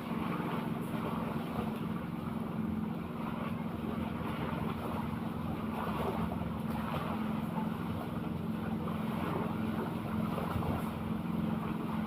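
A boat engine running at a steady pitch, with wind and water noise over it.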